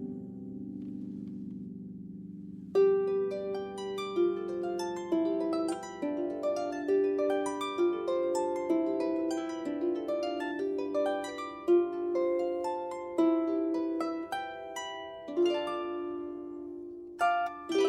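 Solo harp playing: a low chord rings on and fades away, then about three seconds in a plucked melody begins, one note every half second or so, ringing over lower sustained notes, with a quick pair of plucks near the end.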